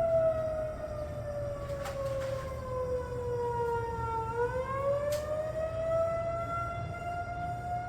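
Federal Signal 2001-230 outdoor warning siren sounding the attack (wail) signal. Its tone slides slowly down for about four seconds, then climbs back up to full pitch within about two seconds.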